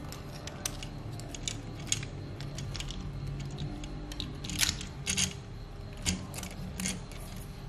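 Hard plastic clicks and snaps of a Transformers Optimus Prime figure's jointed parts being moved and clicked into place by hand: a dozen or so irregular clicks, the loudest cluster about four and a half to five seconds in.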